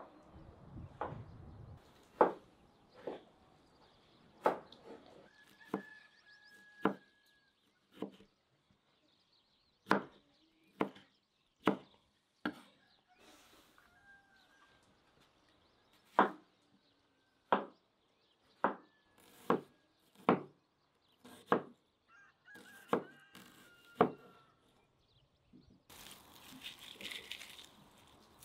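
Kitchen knife coming down on a wooden cutting board in single strokes: about twenty sharp knocks spaced a second or two apart as onion, tomato and cucumber are cut. Faint bird chirps between the strokes, and near the end a couple of seconds of rustling as the cut vegetables are handled.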